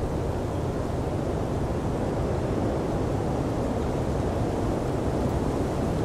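Blizzard wind blowing steadily, a low, even rushing noise with no gusts or breaks.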